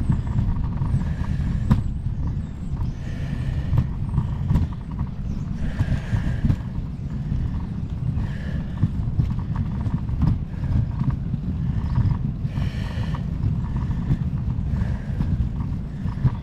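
Wind buffeting a bicycle-mounted GoPro's microphone while riding, a steady low rumble. Faint higher tones come and go every few seconds.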